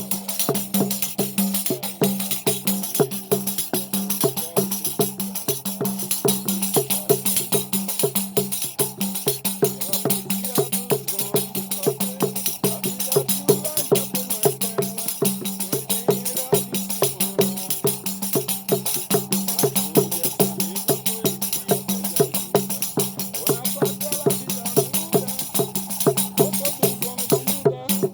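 Music with a fast, even percussion beat, bright jingling on top and a sustained low note.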